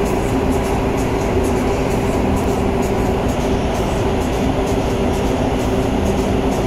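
A ship's engine drones steadily, with a low hum of a few steady tones, under an even rushing of wind and water from the wake.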